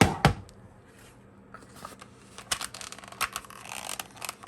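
Handling noise from a pistol and a leather holster: two sharp knocks right at the start, then a quick run of clicks, scrapes and rustles from about a second and a half in.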